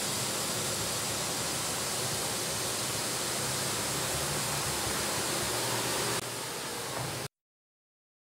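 Steam hissing steadily out of a street manhole cover. It drops a little about six seconds in and cuts off abruptly about a second later.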